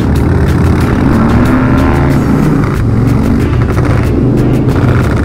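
Harley-Davidson Dyna Low Rider's V-twin engine running steadily while the bike is ridden, with its pitch rising and falling a little around the middle.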